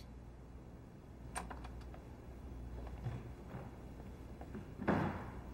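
Faint footsteps and light clicks over a low steady hum, with one louder brushing thump near the end.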